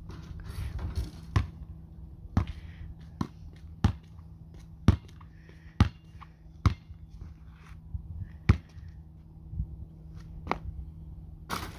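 A basketball is bounced on asphalt: about ten single sharp bounces, roughly one a second and unevenly spaced, as in a dribble before a free throw.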